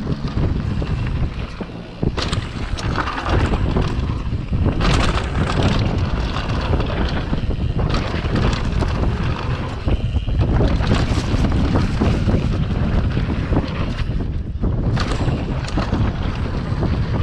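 Wind buffeting the microphone of a mountain bike descending a dirt downhill track at speed, with tyres rumbling over the ground and a few sharp knocks as the bike hits bumps.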